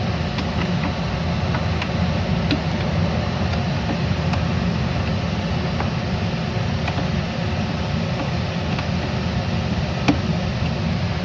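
Steady low background hum with a few faint, light clicks of small plastic wire connectors being pushed onto the washing machine's motor.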